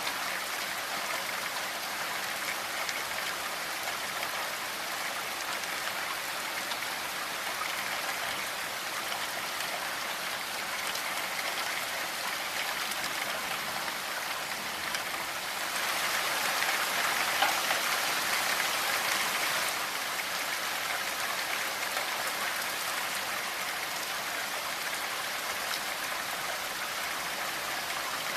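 Steady rainfall, a dense even hiss of drops, swelling louder for about four seconds around the middle.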